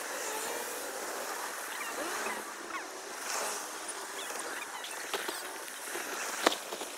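Steady rushing wind and road noise from a moving bicycle, with faint short chirps through it and a couple of sharp clicks near the end.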